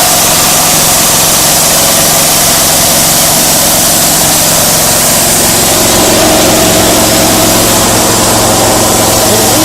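DMC multi-stage natural-gas (CNG) refueling compressor running: a loud, steady motor hum with a constant hiss of gas and machinery. The hum grows stronger and deeper about six seconds in.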